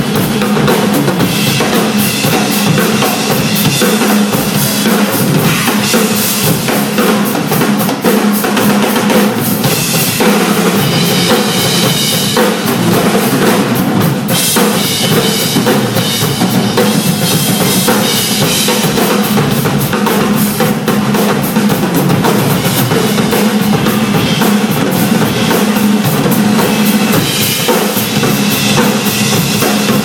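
Drum kit played loudly and without a break: a dense, continuous stream of drum hits.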